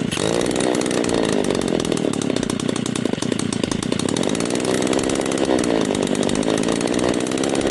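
Backpack brush cutter's small two-stroke engine running steadily just after starting, its pitch wavering a little. It is on a test run after its broken inner cable was replaced.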